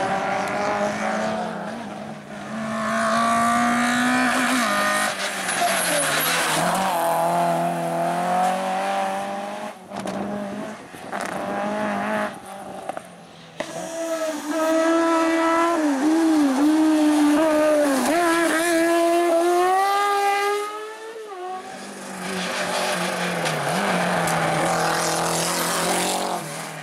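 Race cars on a hillclimb course running hard through the gears. Their engine notes climb and drop at each shift and lift, with some tyre squeal, and the sound breaks off abruptly twice as one car gives way to the next.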